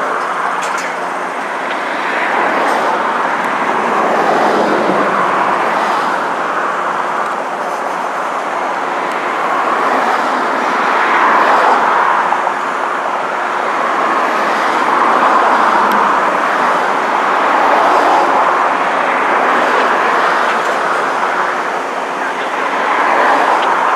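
Royal Canadian Pacific heritage passenger cars rolling past on steel rails: a steady rumble and hiss of wheels on track that swells and eases every few seconds as the cars go by.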